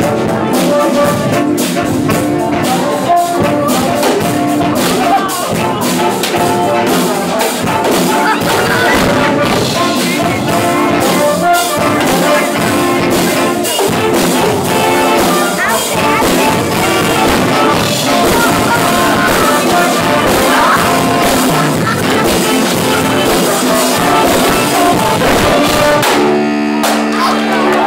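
Live jazz band of saxophones, brass and drum kit playing a funky tune, closing on a long held chord near the end.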